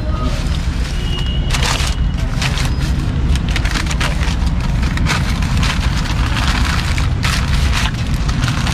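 Newspaper crinkling and rustling, with some foil crackle, as hands fold it around a foil-wrapped pizza: a run of quick, irregular crackles over a steady low rumble.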